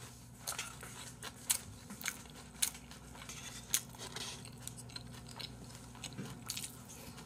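A person eating rice and bossam (boiled pork) with chopsticks: quiet chewing with scattered short, sharp clicks and taps, over a steady low hum.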